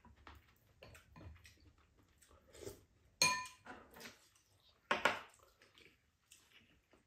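Tableware clinking during a meal: chopsticks and spoons tapping and scraping against ceramic bowls, with soft chewing. There is one sharp, ringing clink about three seconds in, and a brief louder noise around five seconds in.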